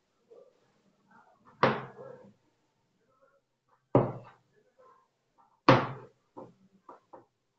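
Kitchen knife cutting through raw potato and knocking down onto a chopping board: three firm chops about two seconds apart, then a few lighter taps near the end.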